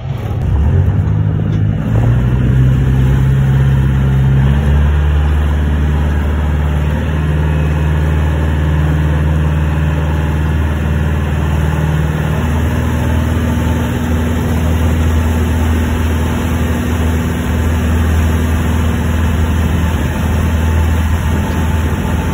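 A small harbour ferry boat's engine running under way, its pitch stepping up about two seconds in and shifting again around twelve seconds in, with water rushing past the hull.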